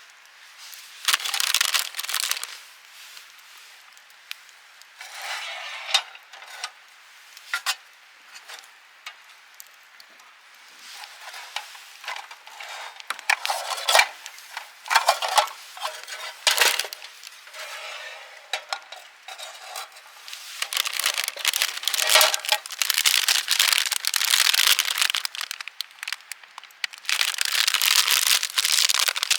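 Camp cookware being handled: a metal mess tin and its stacked gear clink and clatter in scattered bursts. From about twenty seconds in comes a longer stretch of rustling and crinkling.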